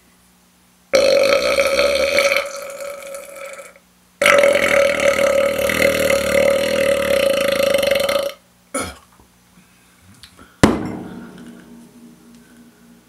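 A man belching loudly twice after drinking beer: two long drawn-out belches of about three and four seconds, each held on a steady pitch. Near the end comes a single sharp knock.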